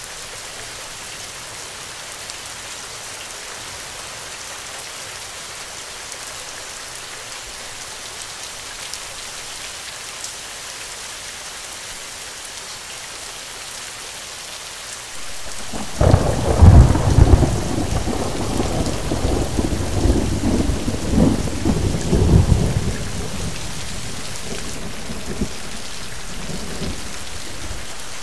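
Steady rain falling, then a little over halfway through a clap of thunder starts suddenly and rumbles loudly for about seven seconds before dying away under the rain.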